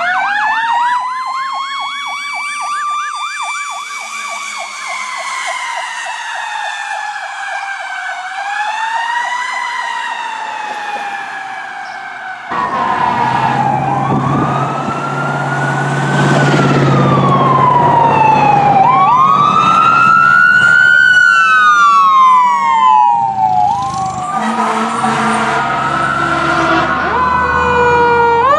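Fire truck sirens wailing, rising and falling in long sweeps. About twelve seconds in, the sound cuts abruptly to a louder passage where the truck's engine rumbles beneath two sirens sweeping together.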